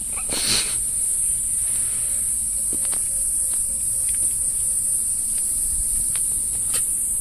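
A steady, high-pitched insect chorus shrilling without a break, with a few faint clicks.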